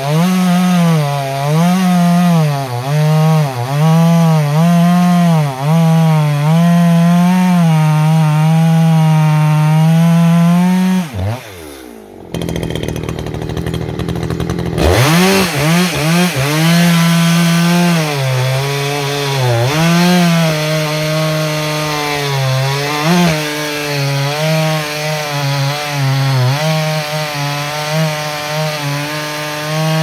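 ECHO CS-620P two-stroke chainsaw at full throttle cutting wood, its pitch dipping again and again under load. About eleven seconds in the revs fall away and a few seconds of rushing noise follow; then the saw revs back up and cuts on.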